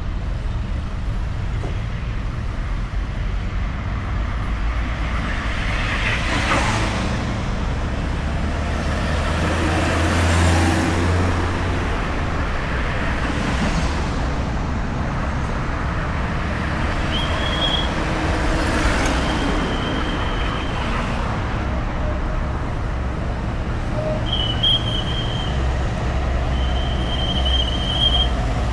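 Steady road traffic: cars and motorbikes passing with engine and tyre noise over a continuous low rumble, several of them swelling up as they pass close. A few brief high-pitched tones come in the second half.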